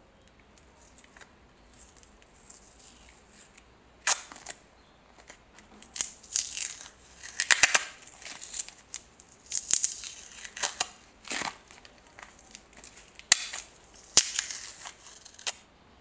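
Masking tape being peeled off a lighter body in short crackling rips, with sharp clicks and taps in between.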